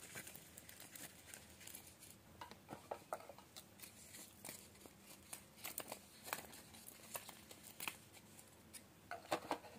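Faint, scattered small clicks and rustles of wristwatches and their cardboard display boxes being handled, with a quick run of clicks near the end.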